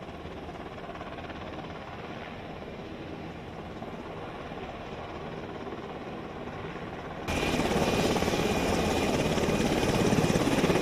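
HH-60 Pave Hawk helicopter running on the ground, its rotor blades chopping steadily over the turbine noise. About seven seconds in the sound cuts abruptly to a louder, closer helicopter with a thin steady high whine.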